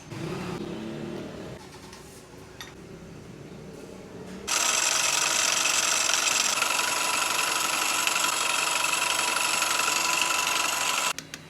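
Refrigerator compressor on an overload test: a loud, steady mechanical running noise with a buzzing whine cuts in suddenly about four and a half seconds in and cuts off abruptly some six seconds later, followed by a few sharp clicks.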